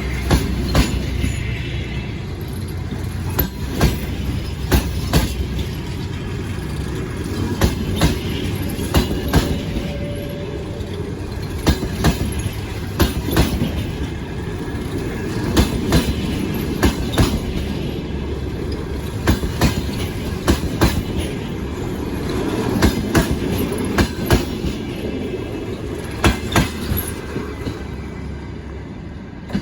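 Express passenger train rolling along the rails, its wheels clacking over rail joints in regular pairs over a steady rumble.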